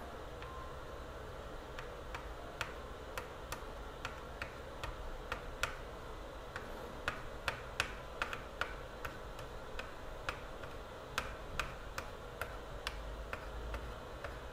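Light, irregular clicks and taps, a couple a second, from small parts and tools being handled at a workbench, over a faint low hum.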